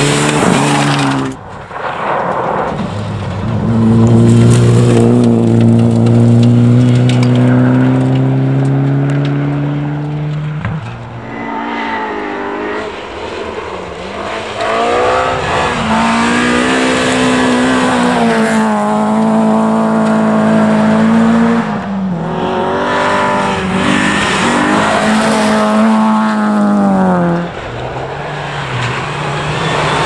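Rally cars at full throttle on a gravel stage, one after another, their engines held at high revs with the pitch rising and dipping through throttle lifts and gear changes.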